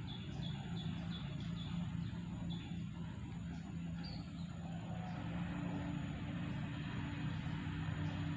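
A steady low drone, like an engine running, throughout. A string of short high chirps comes in the first second and a half, and one more about halfway.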